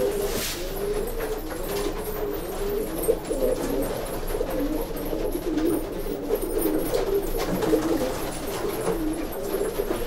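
Domestic pigeons cooing, several birds at once in an unbroken run of wavering coos.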